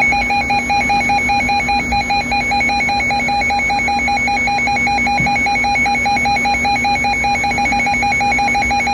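Weather alert radio's electronic alarm going off for an incoming warning: a loud, rapidly pulsing, warbling tone held at a steady level, over a faint low hum.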